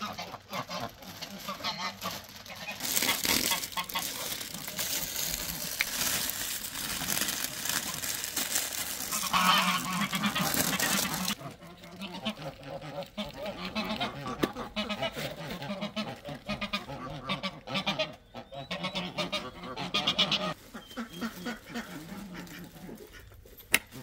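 Domestic goose honking repeatedly, mixed with rustling and scraping from soil, plastic pots and plant bags being handled.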